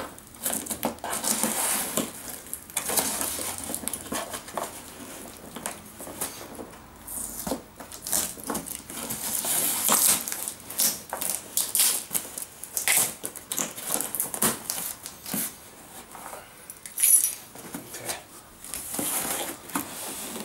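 Packing tape on a cardboard box being slit and scraped open with a small hand tool, then the flaps worked loose: an irregular run of scratching and rasping with cardboard knocks and clicks, and one sharp loud snap about three-quarters of the way through.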